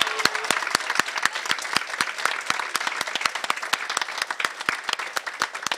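Small audience applauding: many hands clapping, thinning out and growing quieter near the end.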